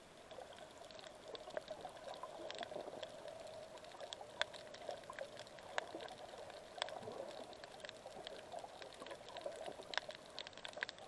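Faint underwater coral-reef sound: a soft watery hiss with scattered, irregular sharp clicks, the crackle typical of snapping shrimp on a reef.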